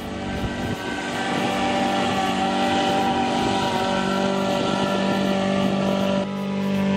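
Small engine of a radio-controlled herbicide-spreading boat running steadily as the boat crosses the paddy. It grows louder over the first second and its tone shifts abruptly about six seconds in.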